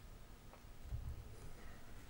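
Faint handling noise with a soft, low thump about a second in as a squeeze bottle of honey is picked up from the table.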